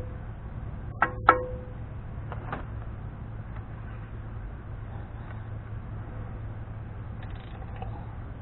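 Metal clinks of a wrench on the spindle-nut socket as the Dana 44 front wheel-bearing nut is backed off: two sharp clinks about a second in, each with a short ringing tone, then two fainter ones, over a steady low hum.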